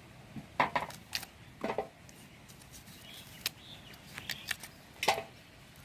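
Skin being peeled off a cassava root with a knife: several short, irregular scrapes and snaps as the peel is cut and pried away.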